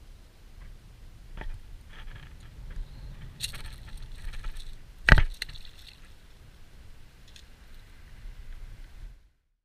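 Hands unhooking a small grouper with fishing pliers: small clicks and rattles over a low rumble of wind and shallow water. A single sharp slap comes about five seconds in, and the sound cuts out just before the end.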